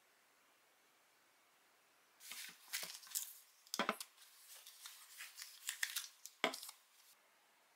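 Cloth tote bag rustling as plastic shampoo bottles are taken out of it, with small clicks and two sharper knocks as the bottles are set down on a table, one near the middle and one near the end.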